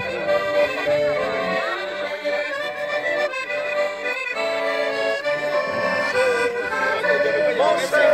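Two accordions playing a tune together in French bal-musette style.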